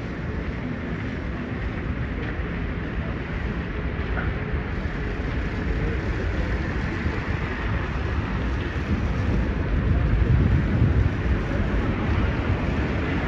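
Busy city street ambience: a steady rumble of traffic with wind buffeting the microphone, swelling louder about ten seconds in.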